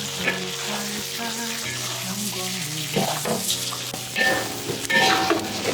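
Food sizzling in a hot wok as it is stir-fried, with a spatula scraping against the wok a few times in the second half. This is zha haijiao being fried with diced cured pork.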